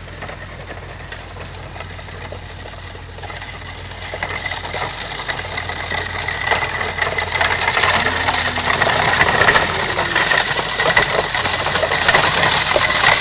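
One-horse cart on a dirt road: clattering of hooves and wheels, growing louder from about four seconds in as it approaches.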